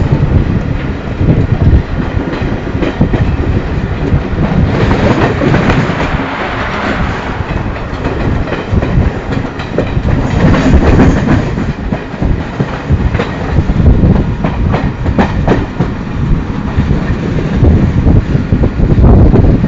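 Passenger train wheels running over rail joints and yard points: a continuous rumble with an irregular clickety-clack of knocks.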